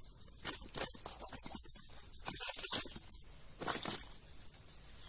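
Rustling in four short bursts within the first four seconds, as the angler shifts about among dry oil-palm fronds and grass.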